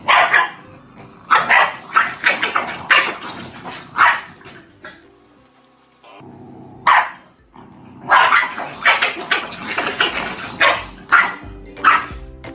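Welsh corgi barking in quick runs of sharp barks, broken by a quiet gap about halfway, over background music.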